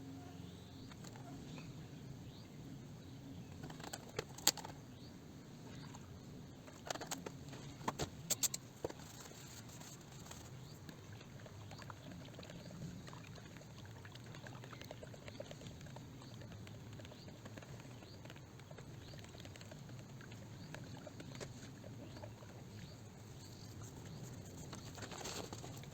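Steady low background hum with scattered short clicks and knocks: one about four seconds in, a cluster between about seven and nine seconds, and more near the end.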